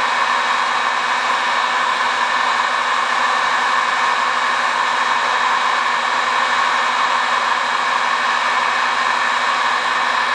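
Electric heat gun running steadily, its fan blowing a constant rush of hot air with a low steady hum.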